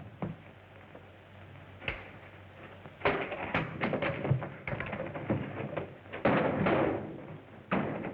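Scuffle of a fistfight on an old film soundtrack: a few sharp knocks, then a dense run of thuds and knocks about three to seven seconds in, and one more hit near the end.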